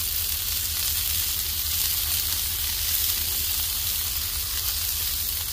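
Onion smash burger patties and buns sizzling steadily on a hot flat-top griddle, over a low steady hum.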